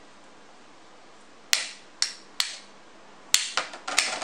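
Two Infinity Nado 5 spinning tops clashing in a plastic battle stadium: three sharp clacks about half a second apart, then a quick rattling flurry of hits near the end as one top is knocked up and tumbles.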